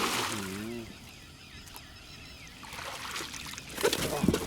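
Two bursts of splashing and handling noise, one at the start and one about four seconds in. Just after the first comes a short wordless voice, and faint bird chirps sound in between.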